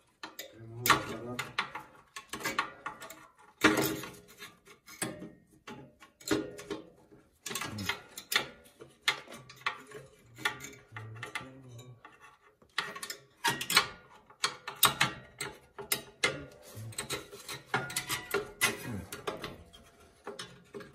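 Irregular metallic clicks, knocks and scraping from hands and tools working on an oil burner's housing and pulling out its ignition electrode and nozzle assembly.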